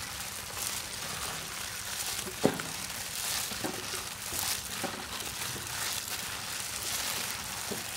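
Gloved hands kneading and squeezing grated potato and shredded chicken in a stainless steel bowl: soft squishing of the mixture and crinkling of the plastic gloves, with one sharp tap about two and a half seconds in.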